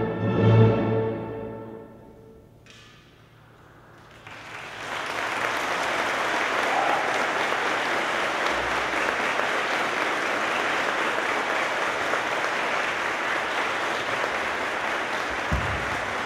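An orchestra's closing chords ring and die away over the first two seconds or so. After a brief hush, the audience breaks into steady applause about four seconds in.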